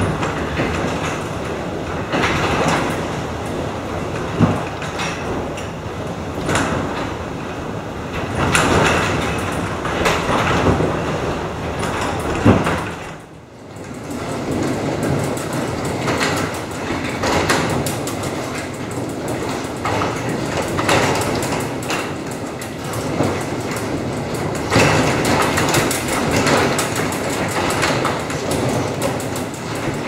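Storm-force wind gusts buffeting the shop, its sectional garage doors rattling and banging in their tracks, with a brief lull about halfway.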